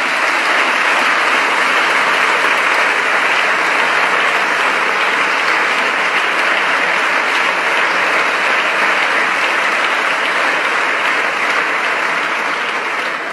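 Sustained applause from a chamber full of parliamentary deputies. It is steady and dense throughout and eases slightly near the end.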